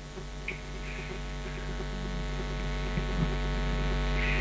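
Steady electrical mains hum with a buzz of many overtones, slowly growing louder.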